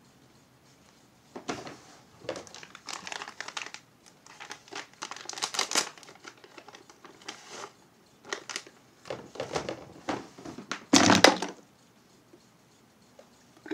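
Crinkling and rustling of makeup items and packaging handled close to the microphone, in irregular bursts. The loudest, fullest burst comes about eleven seconds in.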